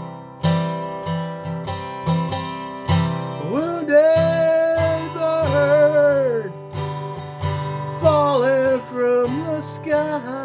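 Acoustic guitar strumming chords in a steady rhythm, with a wordless voice line of long, sliding, wavering notes coming in about three and a half seconds in and again near the end.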